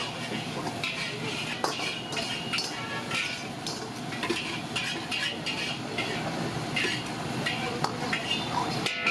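Metal ladle scraping and clinking against a wok, again and again, over the steady hiss of a high-flame gas burner and sizzling oil.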